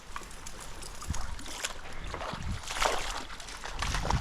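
Shallow creek water sloshing and splashing irregularly, with small trickling sounds between the splashes.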